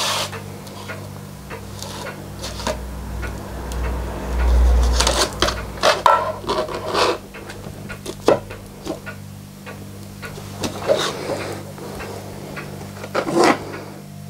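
Scattered clicks, knocks and rubbing from hands handling things on a workbench, with a low rumble a few seconds in, over a steady low hum.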